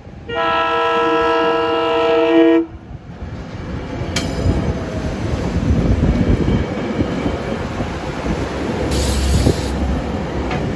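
SEPTA Silverliner IV electric multiple-unit train sounding one horn blast of a little over two seconds, on the small replacement horns that replaced its original Westinghouse AA2s. The train's wheels and running gear then rumble and clatter on the rails, with a sharp click about four seconds in.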